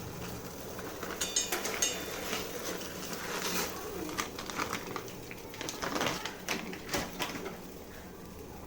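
Close-miked eating sounds: chewing with scattered sharp clicks and smacks, including a quick run of clicks about a second in.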